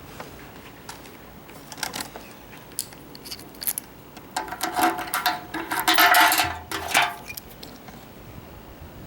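Light metallic clicks, then a busier stretch of clinking and jangling metal pieces with a brief ringing, about four to seven seconds in.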